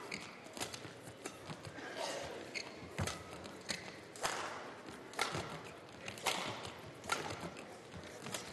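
Badminton rally: shuttlecock struck back and forth with rackets, a sharp crack about once a second, with players' footsteps on the court between hits.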